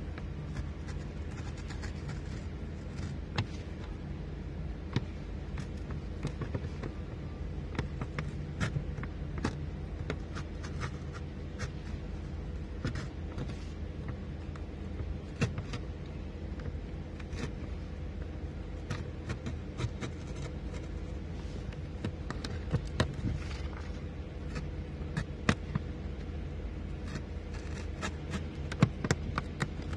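Snap-off utility knife cutting through a paper template and the dashboard's outer skin, giving irregular small clicks and scrapes as the blade works along the outline, over a steady low hum.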